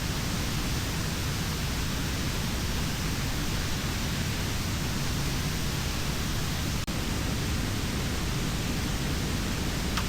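Steady rushing of river water, an even hiss with no rhythm, broken for an instant about seven seconds in.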